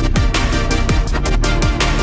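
Background electronic music, dubstep-style, with heavy bass drops that slide down in pitch and a fast, steady beat.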